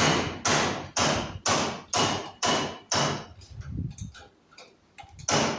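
Hammer blows on metal, about two a second: seven in a row, each ringing briefly, then a pause of about two seconds and another blow near the end.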